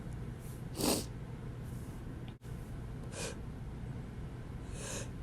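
A man's short, sharp sniffs and catching breaths between wet sneezes: three quick noisy intakes, the strongest about a second in, a fainter one about three seconds in, and another near the end, over a low steady hum.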